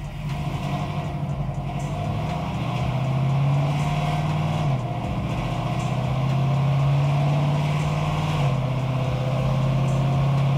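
Supercharged 6.2-litre LS9 V8 in a third-gen Camaro, breathing through a 3-inch true dual exhaust, running loud at part throttle on a chassis dyno. The engine note drops in pitch twice, about four and a half and eight and a half seconds in, as the 4L80 automatic shifts up a gear.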